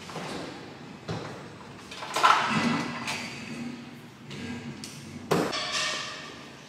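Kitchen handling sounds: a refrigerator door being opened with knocks and clinks, the loudest about two seconds in, then a sharp clatter and a bottle being shaken near the end.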